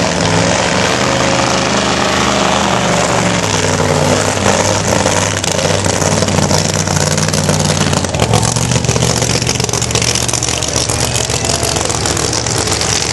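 A supercharged V8 burnout Chev of about 2000 hp revving hard through a burnout, over the hiss of spinning tyres. The engine note shifts up and down and turns deeper and fuller about eight seconds in.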